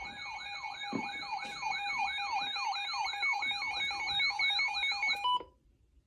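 Electronic yelp siren: rapid rising whoops, about three a second, over a steady tone. It cuts off suddenly near the end.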